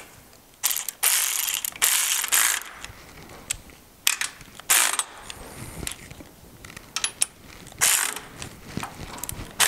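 Cordless ratchet with a 15 mm socket running in several short bursts, driving down the nuts that bolt a trailer jack to its coupler.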